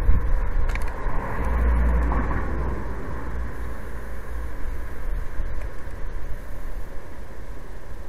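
Steady outdoor background rumble and hiss, with a stronger low rumble in the first few seconds that then settles to an even level.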